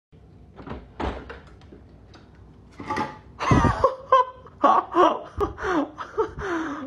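A person laughing in repeated bursts that fall in pitch, starting about halfway through, with a few soft knocks before it.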